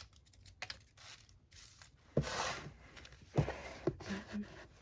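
Paper and card packaging being handled, with light rustling and a few sharp knocks, the loudest about two and three and a half seconds in.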